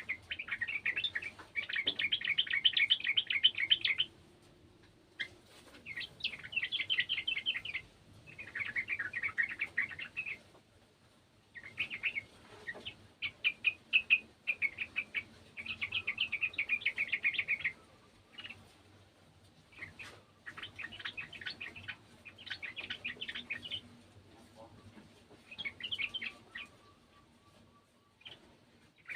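Yellow-vented bulbul (trucukan) singing a rapid chattering song in repeated bursts of about one to four seconds, with short pauses between.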